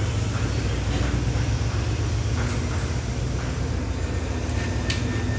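Diesel engine of an Alsthom diesel-electric locomotive running with a steady low rumble beside a standing train. A sharp knock comes near the end.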